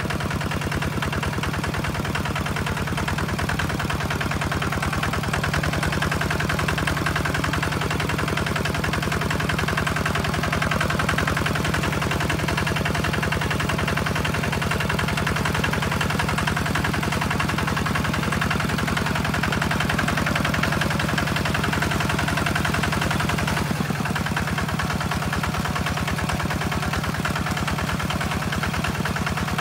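Single-cylinder diesel engine of a two-wheel walking tractor running steadily with a fast, even chugging beat while it works through wet paddy mud.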